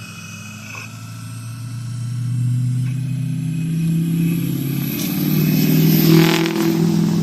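Electric hydraulic pump motor of a 1/12-scale RC4WD hydraulic excavator running with a steady hum that grows louder over the first couple of seconds as the machine works. A short, louder rasp comes about six seconds in.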